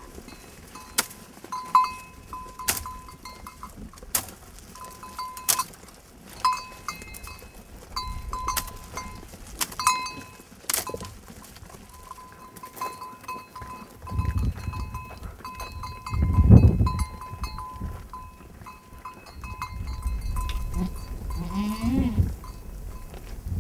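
Small bells on a herd of goats clinking irregularly as the animals move, with a goat bleating once near the end. Low rumbles come and go in the second half, the loudest about two-thirds of the way through.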